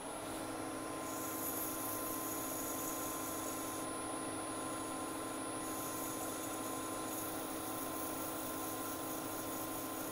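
Wood lathe motor running with a steady hum while the spinning wooden pen part is sanded with fine abrasive, a high hiss that swells and fades as the abrasive is pressed on and eased off.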